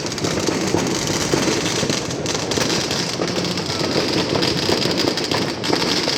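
Fireworks going off in a dense, continuous spatter of rapid crackles and pops.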